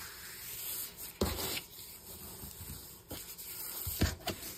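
Hands rubbing and pressing along a fold in cardstock to crease it flat on a cutting mat, a dry paper rustle, with a couple of soft knocks about a second in and near the end.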